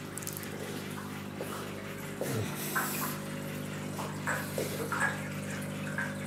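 Steady electrical hum with water bubbling and trickling from aquarium sponge filters driven by an air pump, with a few faint plinks.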